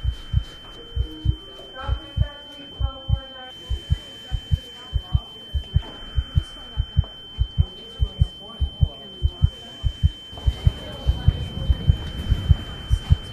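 Heartbeat sound effect: low thumps, about two to three a second and quickening near the end, under a steady high-pitched tone. A short voice is heard about two seconds in, and a rushing noise comes up about ten seconds in.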